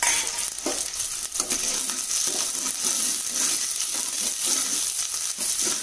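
Chopped shallots and green chilies sizzling in hot oil in a pan, with a metal ladle scraping and clinking against the pan in repeated strokes as they are stirred.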